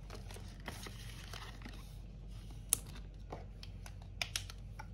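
Faint rustling of paper banknotes and plastic cash-envelope sleeves being handled, with a few sharp clicks, one near the middle and two close together near the end.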